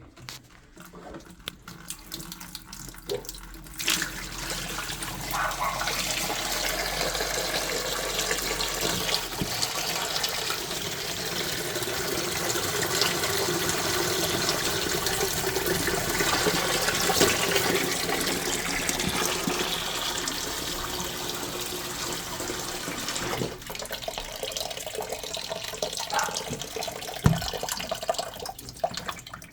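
Water running in a steady rush for about twenty seconds, then dropping to a weaker flow, with a single knock near the end.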